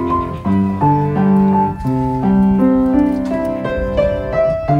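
Background piano music: a calm melody of held notes over chords, changing every half second or so.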